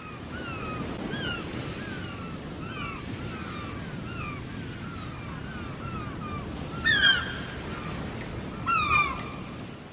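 Beach ambience: gulls calling over and over, about two or three calls a second, with two louder calls about seven and nine seconds in, over the steady wash of surf.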